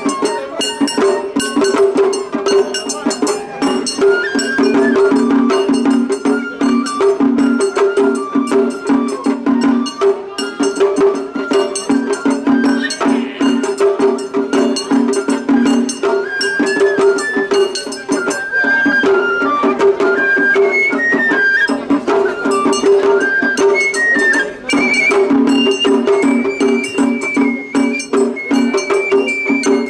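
Japanese festival hayashi ensemble playing: a bamboo flute carries a stepping melody over fast, continuous drum and hand-gong strikes. The flute line comes forward and climbs higher about two-thirds of the way through.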